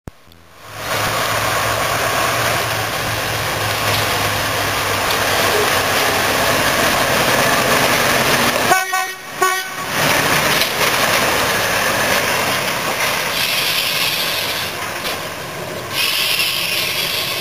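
BR Class 03 diesel shunter's Gardner eight-cylinder diesel engine running as the locomotive moves past along the track, with a short horn toot about nine seconds in.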